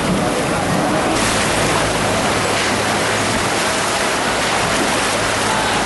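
Floodwater rushing: a loud, steady roar of water that grows louder about a second in, with a low steady hum underneath.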